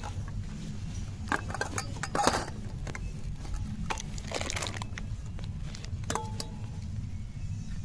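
Scattered light clinks and clatters of objects being handled, over a low steady hum.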